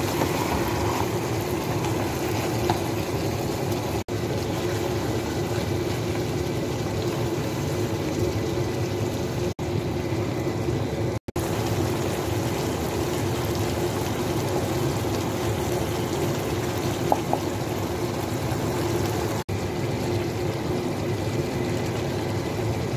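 Chicken pieces frying and simmering in sauce in a pot, a steady bubbling sizzle over a constant low hum, with the sound dropping out briefly a few times.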